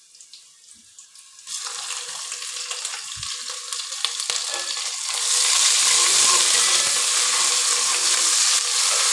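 Garlic-ginger paste dropped into hot oil and browned onions in a steel pot, frying with a sizzle. The sizzle starts about a second and a half in and grows louder about five seconds in as it is stirred with a spoon.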